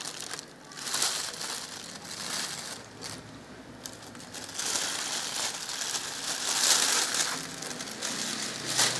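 Thin plastic takeaway bag crinkling and rustling as it is squeezed and handled, in several irregular bursts, the longest after the middle.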